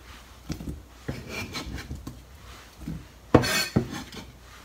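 Sliced persimmon being put into a bowl: light scraping and rubbing with a few knocks, the loudest a bit over three seconds in.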